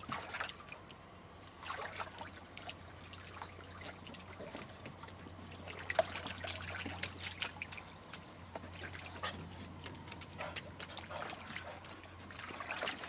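Hot-tub water splashing and trickling as Lagotto Romagnolo dogs move about in it, a run of small, scattered splashes and drips. A low steady hum lies underneath.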